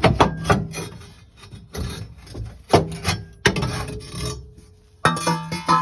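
Old steel exhaust pipes scraping and knocking as they are worked loose and pulled out, in a run of irregular scrapes and knocks. A sharp hit about five seconds in is followed by a short metallic ring.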